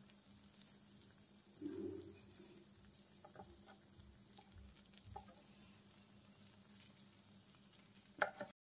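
Faint sizzling from the hot plates of an open electric sandwich maker with toasted sandwiches inside, with a few light clicks and taps of a spatula and hand, and a sharper click about eight seconds in as a sandwich is taken out.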